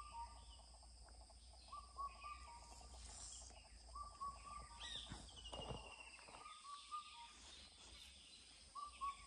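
Faint morning birdsong: one bird repeats a short phrase of a few whistled notes every two seconds or so, and another gives a brief descending trill about five seconds in. A steady high insect buzz runs underneath.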